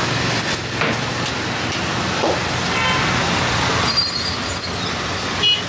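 Steady noise of road traffic, with a brief horn toot about three seconds in and a short sharp clatter just before the end.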